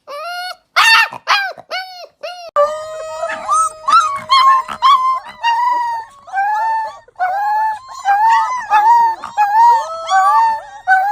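Several young puppies howling together. It opens with short rising-and-falling yelping howls, then a few seconds in becomes a chorus of overlapping howls, one of them held on a long steady note for several seconds.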